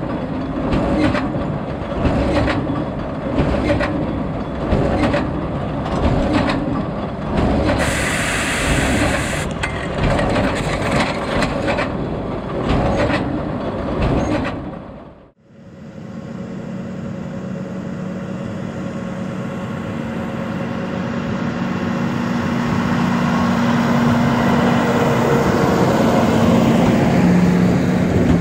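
John Deere tractor pulling a Krone Big Pack large square baler: the baler's plunger knocks in a steady rhythm, a little over once a second, over the running engine. About halfway through, the sound cuts to a steady engine with a low hum that grows louder.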